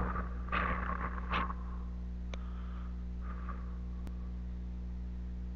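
Faint steady low hum with a few soft breathy swishes in the first second and a half and again past the middle, and two tiny clicks.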